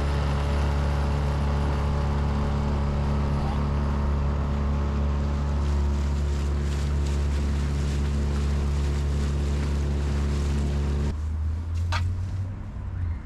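A small boat's motor running steadily under way, with wind noise over it, then dropping to a low idle about eleven seconds in. A short high chirp is heard about a second later.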